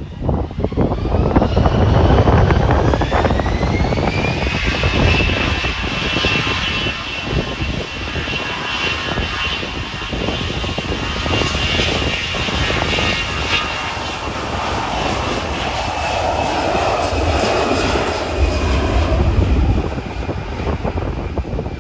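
Airbus A320-family airliner's twin jet engines spooling up to take-off thrust: a whine rising over the first few seconds, then holding steady under a loud rumble as the aircraft rolls down the runway.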